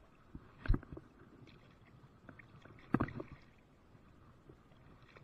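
Knocks and thumps on a small fishing boat, with two louder ones about a second in and about three seconds in, over water sloshing against the hull.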